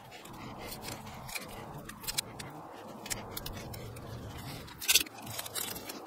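Grafting tape being stretched and wrapped around a fresh graft: soft rustling and crinkling handling noise with scattered sharp clicks, the loudest a quick cluster of clicks about five seconds in.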